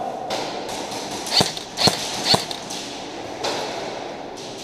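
Three sharp cracks of airsoft gunfire in quick succession, about half a second apart, over the hollow background noise of a large room.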